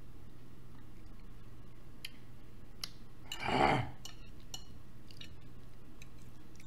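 Close-miked eating: a few light clicks of a metal fork on the plate and chewing, with one louder, half-second mouth sound about three and a half seconds in, over a low steady hum.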